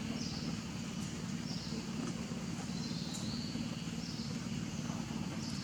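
Short high-pitched chirping calls, repeated roughly every second, over a steady low background rumble.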